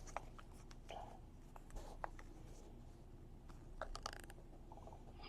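Faint scattered clicks and light rustles of trading cards being handled, with a small cluster of clicks about four seconds in.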